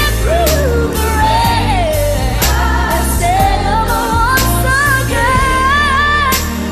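Pop song with a sung melody held over steady bass and drums.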